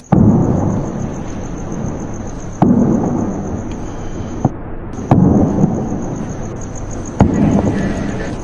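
Deep booming impact hits from an edited soundtrack, four of them about two and a half seconds apart, each trailing off in a low rumble. A faint steady high tone runs behind them.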